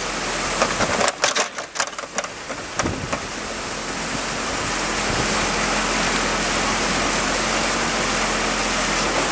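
Muddy pond water rushing and churning through a breach dug in an earth dam, a loud steady torrent like a small waterfall. It is uneven with a few sharp knocks in the first three seconds, then steady, with the Case 580 Super L backhoe's diesel engine running low underneath.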